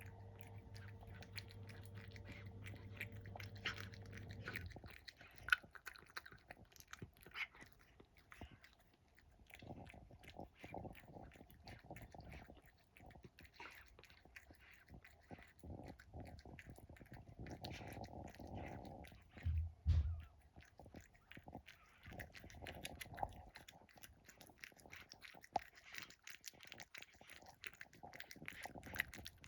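Cat eating, with a run of quick chewing and crunching clicks, and piggy sounds as it eats.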